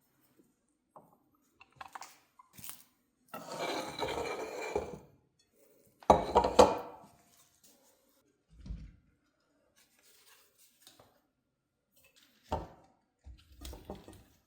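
Kitchenware being handled: dishes and utensils clinking and knocking. A scraping, rattling stretch comes a few seconds in, the loudest clatter about six seconds in, and a few more knocks near the end.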